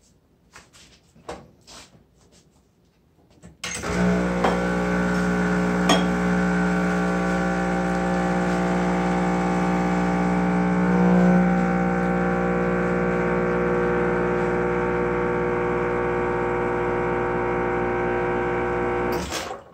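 Expobar lever espresso machine's pump running while it pulls an espresso shot: a steady buzzing hum that starts about four seconds in and cuts off sharply just before the end, as the group lever is brought down. A few light clicks come before the pump starts.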